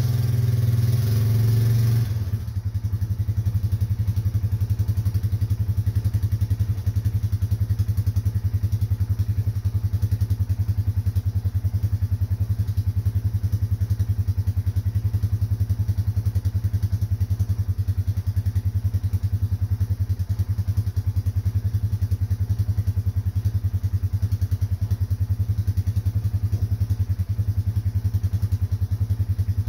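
An engine running steadily at idle, a fast even beat, slightly louder and fuller for the first two seconds and then steady.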